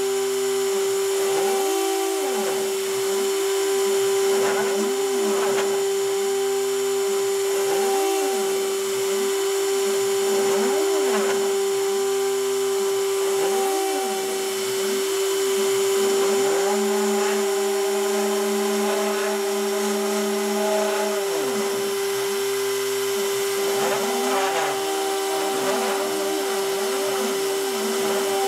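Rotary-tool spindle on a C-Beam CNC machine running with a steady whine while the bit cuts cardboard. Under it the machine's stepper motors whine up and down in pitch about every second and a half as the axes speed up and slow down between moves, holding a steady note during a longer straight move about two-thirds of the way through.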